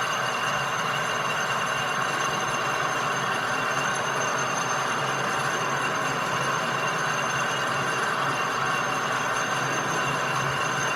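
A machine running steadily: a constant hiss with several fixed high-pitched whines, not changing.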